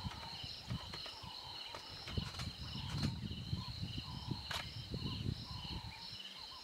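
Bush ambience: insects calling in a steady high-pitched chorus that pulses about twice a second, with softer calls lower down. Under it an uneven low rumble, like wind or handling on the microphone, dies away near the end.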